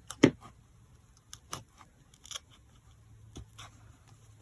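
Scattered clicks and light knocks of scissors and paper being handled on a work surface, the loudest a sharp knock about a quarter second in, then a few fainter taps.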